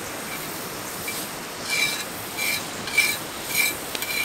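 Butter sizzling on a hot pie iron, with a squeaky scraping about every half second as the butter is rubbed across the hot metal plates.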